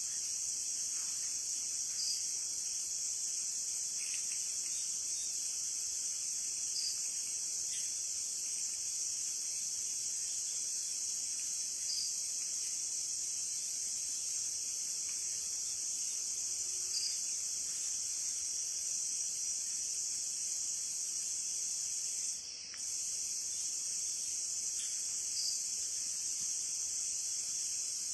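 Steady high-pitched chorus of insects, such as crickets, with a faint short chirp about every two and a half seconds; the chorus briefly drops away once, about two-thirds of the way through.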